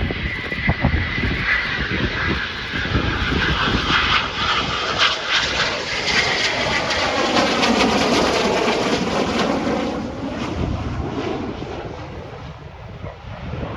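Aircraft engine noise as a plane flies past, building to its loudest about eight seconds in and then fading away, with wind buffeting the microphone.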